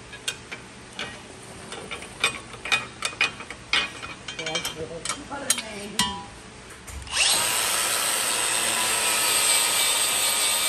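A series of light knocks and taps as the steel support plate is handled and traced against the truck frame. About seven seconds in, a handheld power grinder starts and runs steadily against the steel frame rail, grinding off the paint.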